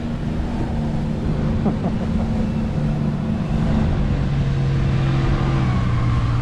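Wind buffeting the microphone over a steady engine drone from the towing speedboat below; the drone drops a little in pitch about four seconds in.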